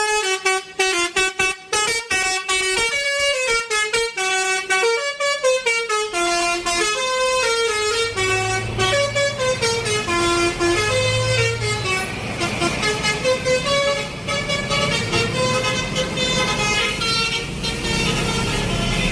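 Telolet bus horn playing a fast melody of short notes that step up and down. From about eight seconds in, a low rumble runs beneath it.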